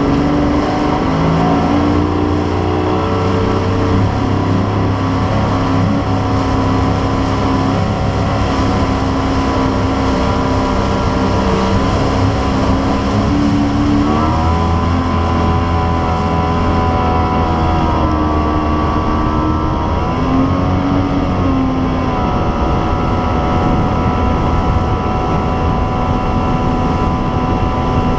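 A fishing boat's outboard motor running under way, a steady engine note with low rumble that shifts pitch twice, about halfway through and again about two-thirds of the way in, as the throttle changes.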